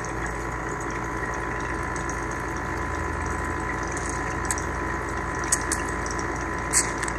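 Clean water running through a particle-counter sensor cell to flush out cleaning solution: a steady rush of flowing water with a faint steady hum underneath, and a few light clicks in the second half.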